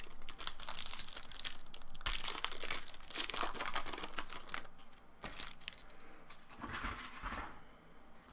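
Crinkling and tearing of a foil trading-card pack wrapper and rustling of the cards, densest for a few seconds in the middle, then quieter with a brief rustle near the end.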